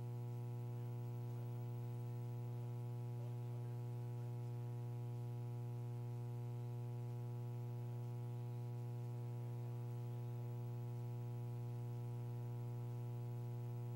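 Steady electrical hum with a buzzy stack of overtones, unchanging throughout, typical of mains hum on an audio line.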